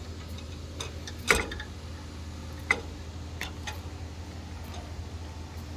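Hydraulic flaring tool and stainless steel fuel line being handled: scattered metal clicks and knocks, the loudest about a second and a half in, over a steady low hum.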